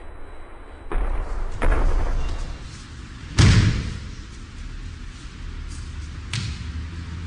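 Thuds and slaps of bodies and hands hitting a padded dojo mat as partners take breakfalls from kotegaeshi wrist-turn throws. There are two impacts about a second in and the loudest a little past the middle, with a smaller one near the end.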